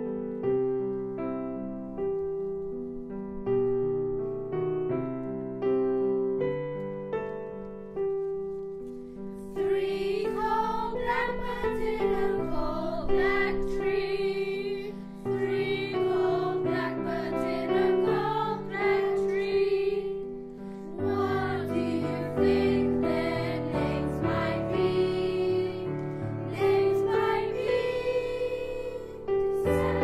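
A piano plays an introduction alone, and about a third of the way in a young school choir begins singing the song over the piano accompaniment.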